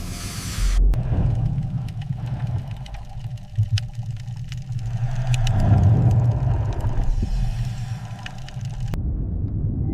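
A deep, steady mechanical rumble with scattered sharp clicks and ticks over it. The sound changes abruptly about a second in and again near the end.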